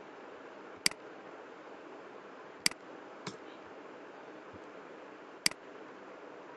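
Computer mouse clicking while text is selected and copied in a code editor: four sharp single clicks spread over several seconds, the third one fainter, over a steady hiss.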